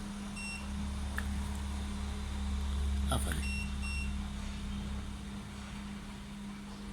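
Siemens washing machine control panel giving short high electronic beeps, once about half a second in and twice in quick succession around three and a half to four seconds in, as the Start button is held to switch the child lock. A steady low hum runs underneath.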